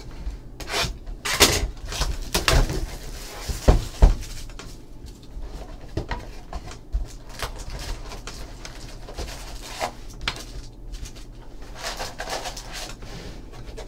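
A cardboard trading-card box being cut open with a utility knife and its lid lifted, then foil card packs rustling as they are pulled out and stacked on a table. Several sharp knocks come in the first few seconds, with lighter taps and rustling after.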